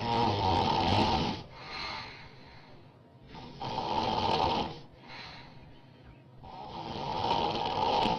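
A woman snoring loudly: three snores about three and a half seconds apart, each lasting over a second, with a softer breath between each.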